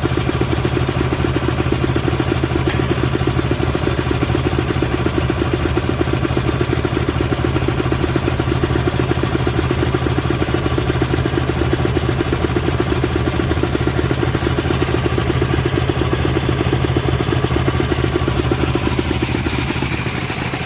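Gas engine of an engine-driven air compressor running steadily, driving the compressor pump; it eases off slightly near the end.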